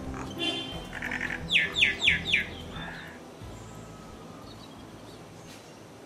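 Common myna calling: a few chattering notes, then four loud whistled notes in quick succession, each sliding down in pitch, over faint background music.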